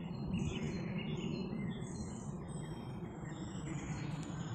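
Wild birds chirping and twittering in the background, in short scattered high calls, over a steady low rumble of outdoor noise.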